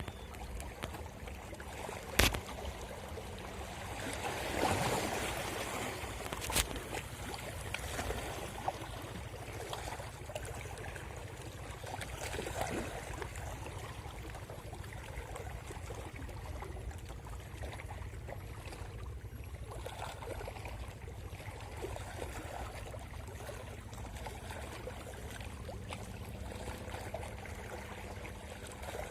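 Water lapping and sloshing against a small fishing boat's hull over a steady low rumble, with two sharp knocks in the first seven seconds.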